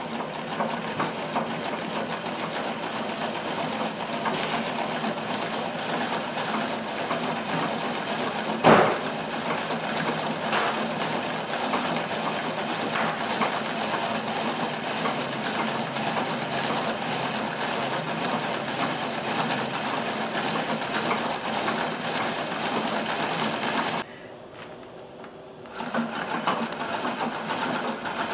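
Treadle-driven Singer slant-shank sewing machine stitching free-motion with a spring-loaded darning foot hopping on the fabric and the feed dogs covered: a steady, rapid needle clatter. A single sharp knock comes about nine seconds in, and the stitching stops for about two seconds near the end, then starts again.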